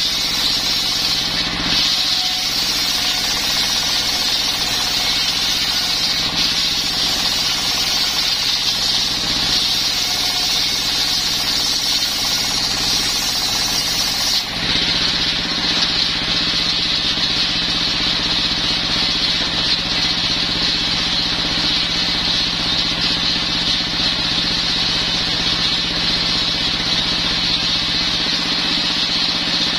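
Stationary diesel engine running steadily, driving a circular table-saw blade that rips through a coconut-wood board with a loud high hiss. About halfway through the cut ends and the hiss drops off, leaving the engine and the blade spinning free.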